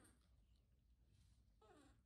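Near silence: room tone, with one faint, short falling sound near the end.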